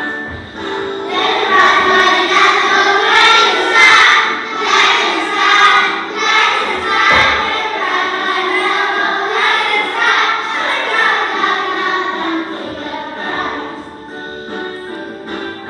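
Young children singing together as a group over musical accompaniment, starting loud about a second in and becoming quieter near the end.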